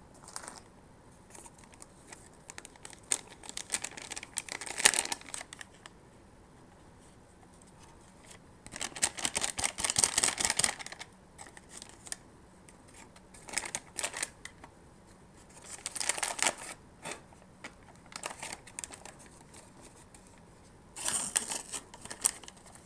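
Paper and foil wrapping being crinkled and unfolded by hand, in about six bursts of rustling and crackling with quiet pauses between.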